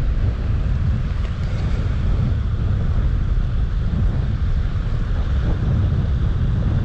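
Wind buffeting the microphone with a loud, ragged low rumble, over the steady rush of river water.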